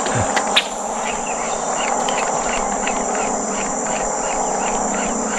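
Insects chirping steadily: a continuous high buzz with short chirps repeating a few times a second, over a steady lower hum.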